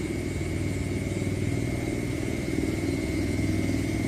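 A small engine running steadily at low revs, nearby and throughout, growing a little louder after about two and a half seconds.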